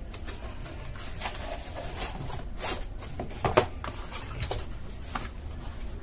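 Cardboard boxes being handled: a small product box taken out of a cardboard shipping carton and turned over in the hands, a series of short cardboard scrapes and taps, the loudest about three and a half seconds in.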